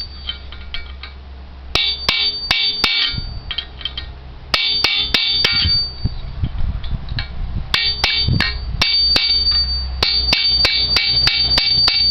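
Hammer blows ringing on steel, in four quick runs of several strikes each. They strike a Bob-Tach part to fracture a weld that has already been cut with a grinder and break the part loose.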